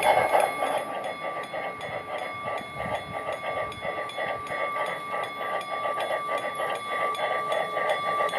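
Model narrow-gauge steam locomotive running on a garden railway, giving quick, even chuffs about four to five a second over a steady high whine.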